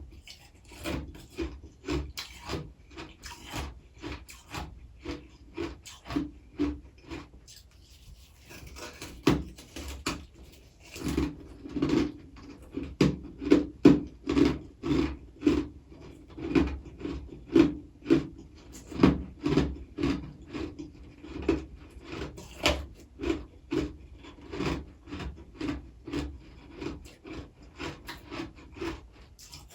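Freezer frost being chewed: a steady run of crisp crunches at about two a second, with a short lull about eight seconds in.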